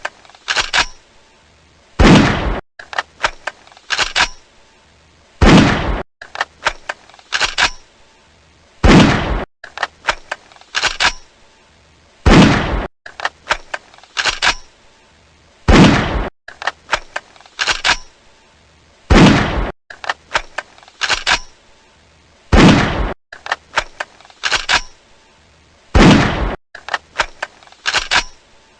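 Pistol slide racked to chamber a round, a couple of sharp metallic clicks, then a single gunshot with a short ring-out. The rack-and-fire sequence repeats about every three and a half seconds, eight shots in all.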